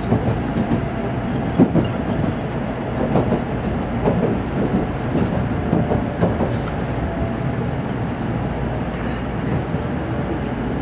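Cabin noise of a Tokaido Shinkansen train: a steady rumble of wheels on rail, with irregular clicks and knocks from the track, most of them in the first half. The train is slowing on its approach into Kyoto station.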